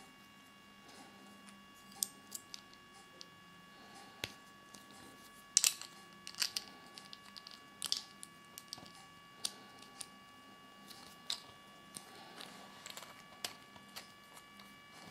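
Small plastic Kinder Surprise toy parts clicking and snapping as they are handled and fitted together by hand: irregular sharp clicks, strongest about midway, over a faint steady electronic hum.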